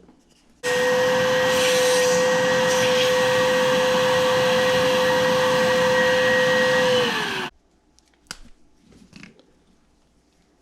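Shop vac switched on about half a second in, running steadily with a whine for about seven seconds, then switched off and winding down. It is sucking standing water out of a stopped-up air-conditioner condensate drain.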